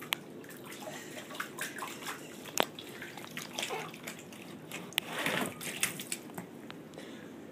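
Border collie puppy splashing and lapping water in his bowl: irregular sharp splashes and drips throughout, with a longer splash about five seconds in.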